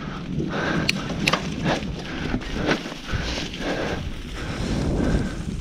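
Footsteps on a sandy, leaf-covered trail, a soft stroke about every half second, with wind rumble on the camera microphone.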